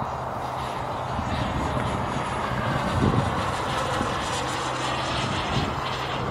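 Turbine engine of a BVM Ultra Bandit radio-controlled jet in flight overhead: a steady jet rush.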